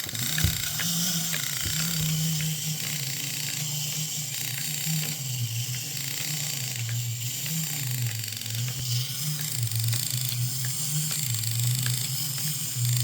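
Wind-up Marx Mighty Kong gorilla toy running: a low growl that wavers up and down in pitch, with light thumps as its arms beat its chest.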